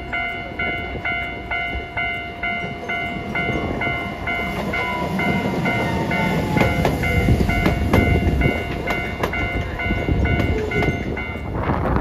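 Railway level-crossing warning bell ringing in rapid, evenly spaced strikes, stopping near the end, as a Hiroden 3900-series 'Green Liner' articulated tram runs past on the rails with a low rumble, wheel clicks and a falling motor whine.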